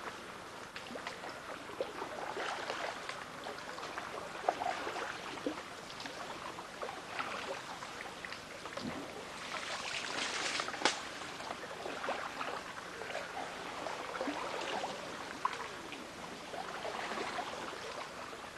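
Oars splashing and dripping in floodwater as a small inflatable dinghy is rowed, with a few sharp knocks. The splashing is loudest about ten seconds in.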